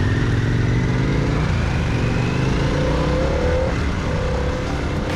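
Motorcycle engine, the Harley-Davidson Pan America's V-twin, pulling under acceleration while riding, with wind rushing over the microphone. The engine note climbs in pitch, breaks off about four seconds in, and picks up again at a lower pitch.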